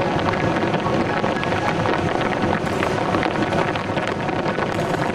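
Heavy rain drumming on a vehicle's roof, heard from inside the cabin as a loud, steady hiss thick with the ticks of single drops.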